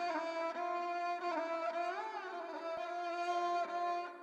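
Background music: a bowed string instrument plays a slow melody of held notes, sliding up and back down in pitch about two seconds in.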